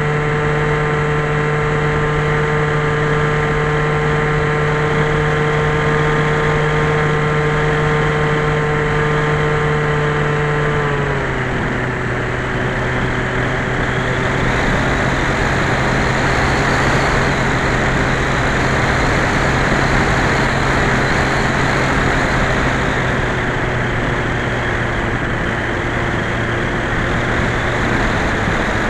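Skyhunter FPV plane's electric motor and propeller running with a steady hum, over a constant rush of air. The hum drops a little in pitch about eleven seconds in, and the rush of air becomes stronger after it.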